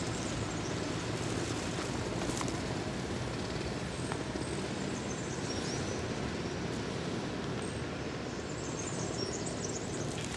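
Steady city ambience heard from a high lookout: a broad, even hum of distant traffic, with a few faint high bird chirps, most of them near the end.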